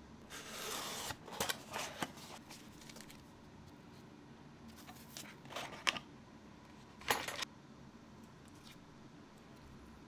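A cardboard box being opened and a boxed smart wall switch handled: a brief sliding rustle about half a second in, a few light clicks and taps at one to two seconds and again at five to six seconds, and another short slide about seven seconds in.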